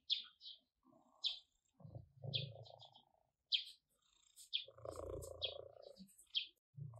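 Orange tabby cat purring in two stretches, one about two seconds in and one about five seconds in. A small bird chirps over it, short high chirps about once a second, and these are the loudest sounds.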